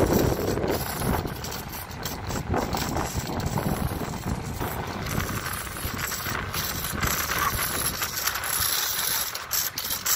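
Child's small bicycle with training wheels rattling and clicking as it rolls along a tarmac path, with low wind rumble on the microphone, strongest at the start.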